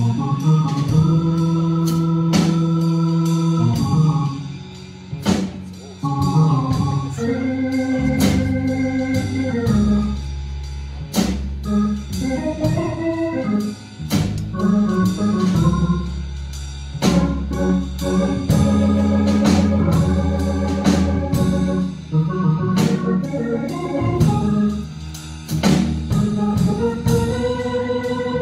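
Organ solo in a blues: held chords a couple of seconds long alternate with quicker runs. A bass line is played on the same keyboard underneath, and drums keep time with regular hits.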